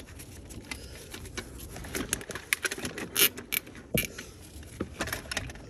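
Irregular small clicks and light knocks of plastic and metal parts being handled and fitted in a car's engine bay. They are thickest about two to four seconds in, with one sharper knock about four seconds in.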